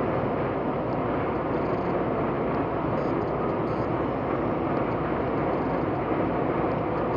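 Steady road and engine noise of a car driving along, with no distinct events.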